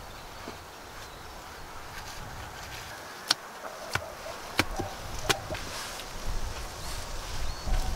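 Short sawn log rounds knocking against each other as they are handled: four sharp wooden knocks a little over half a second apart in the middle, with lighter scraping and shuffling after them.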